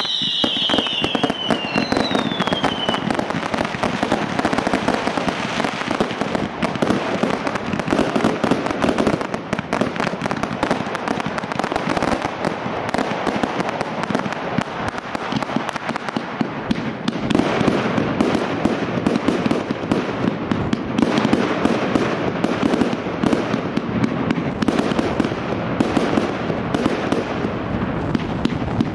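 Fireworks display firing: rapid, continuous bangs and crackling from shells and rising comets, with a few falling whistles in the first couple of seconds.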